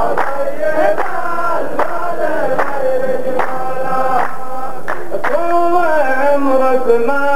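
A chorus of men chanting a qalta verse in unison, clapping together about every 0.8 s. The claps stop about five seconds in while the drawn-out chant carries on.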